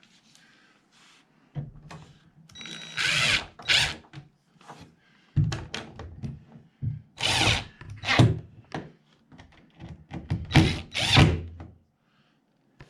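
Power drill driving hinge screws in about six short bursts, with knocks and clunks between them.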